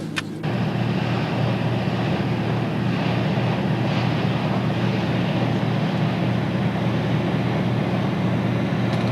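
A boat engine runs steadily with a low, even hum, setting in abruptly about half a second in.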